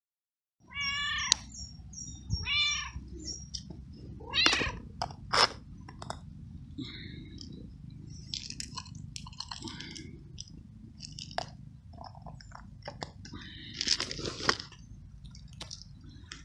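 Tabby stray cat meowing loudly twice near the start, hungry. It then crunches and chews dry food in scattered short clicks over a steady low background noise.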